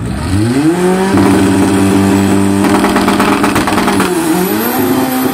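Volkswagen hatchback's engine revved hard while stationary at the drag-strip start line, held steady at high revs. The revs dip briefly about four seconds in and then climb again, with a burst of crackling in the middle of the hold.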